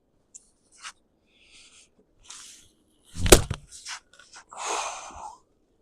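A splitting axe strikes a log once, a sharp loud crack about three seconds in that splits the piece. Softer rustling comes before the blow, and a brief scuffing clatter follows.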